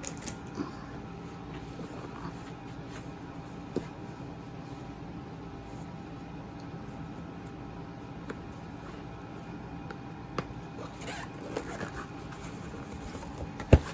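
Unpacking by hand: packaging rustling and small clicks, with a steady low hum behind, and one sharp knock near the end.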